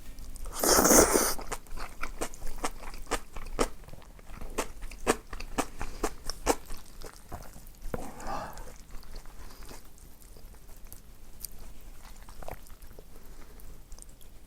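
Close-miked eating: a loud bite about a second in, then a fast run of crunchy chewing that slows and grows quieter toward the end.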